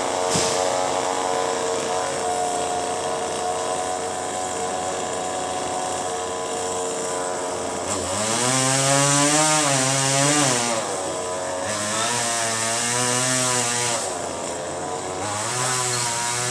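Two-stroke chainsaw running at a steady speed, then revved up about eight seconds in. Its pitch rises and sags in three spells with short drops between them.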